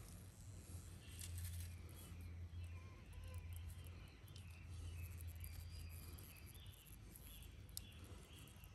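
Faint swishing and sloshing of water as a clay dish is swirled in a pot of water, panning iron prills out of charcoal and ash. Birds chirp faintly in the background.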